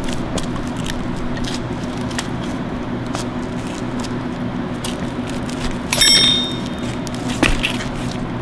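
Hand tool working on the pinion housing of a power steering rack: scattered metallic clicks and scrapes, with one ringing metal clink about six seconds in.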